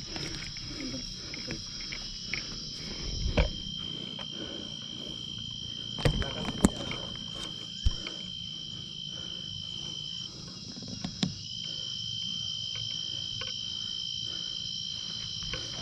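Night insects trilling in a steady high chorus, one trill breaking off for about a second partway through and then resuming. A few scattered thumps and scuffs of footsteps on the dirt trail.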